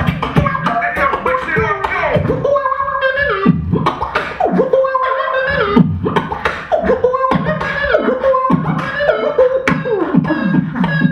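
Live a cappella beatboxing by a vocal group: mouth-made drum hits in a fast rhythm, with pitched vocal lines that hold and slide downward over them.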